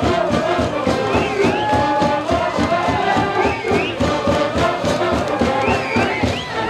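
School brass band playing a baseball cheering song over a steady drumbeat, with the student cheering section shouting along.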